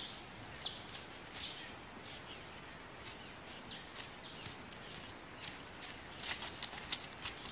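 Footsteps crunching and crackling through dry leaf litter, more of them in the last second or so, over a steady high insect drone.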